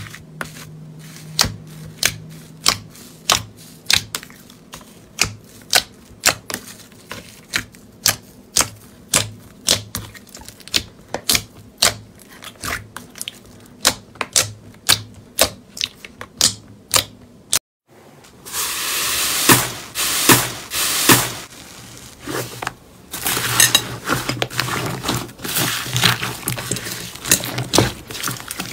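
Slime being worked by hand: sharp clicking pops about two a second, then, after a cut, dense continuous crackling and crunching.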